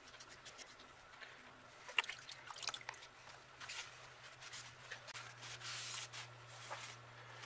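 Faint rustling and light clicks of a paper shop towel wiping a freshly blued steel part, with a steady low hum underneath.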